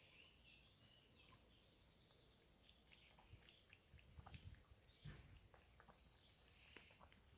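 Near silence: a cat lapping milk, faint soft clicks at about three a second, with faint bird chirps and trills in the background.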